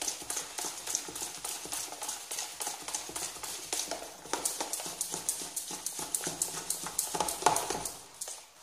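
A spoon beating thick, ground urad dal batter in a plastic bowl by hand: rapid, regular slapping strokes, several a second, whipping air into the batter so the vadas come out soft. The beating slows and stops near the end.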